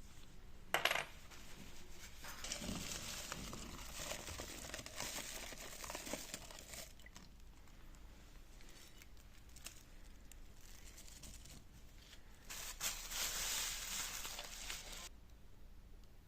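Small metal bicycle hub parts clinking and rattling as they are handled, with a sharp clink about a second in and two longer noisy stretches of metal-on-metal handling.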